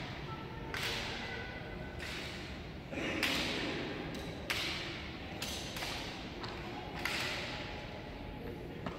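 Honour guards' ceremonial drill: sharp boot stomps and rifle strikes, one every second or so, each ringing out in a long echo as in a large hall.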